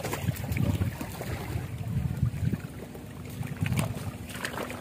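Water sloshing and splashing around someone wading, with wind buffeting the microphone. A faint steady hum joins about halfway through.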